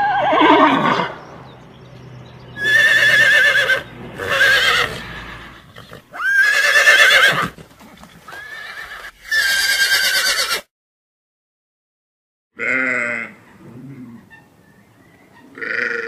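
Horses whinnying, about five loud, quavering neighs one after another. After a brief silence, sheep begin bleating near the end.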